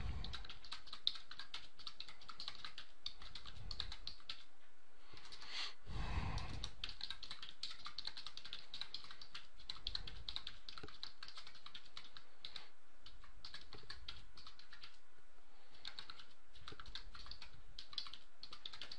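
Typing on a computer keyboard: rapid runs of keystrokes broken by a few short pauses.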